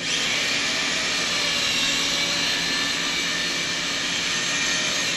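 PowerQuick battery-powered rope ascender's motor running as it hauls a person up the rope: a loud, steady high-pitched motor sound that starts at once and cuts off near the end.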